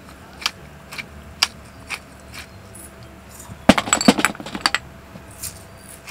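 Light clicks and clinks of small kitchenware being handled, a plastic egg tray and a steel cup with spoon, at first spaced about twice a second, then a quick flurry of louder clinks a little past halfway.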